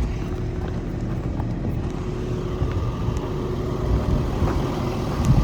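Volvo EC220E excavator's 5.7-litre diesel engine idling steadily, a low rumble with a faint steady hum.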